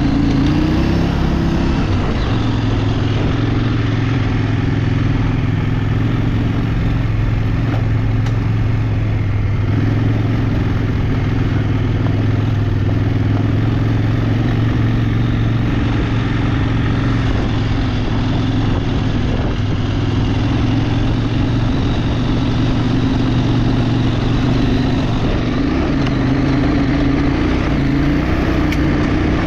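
Motor vehicle engine running steadily under way, its pitch stepping up or down a few times as the speed or gear changes, over constant road and wind noise.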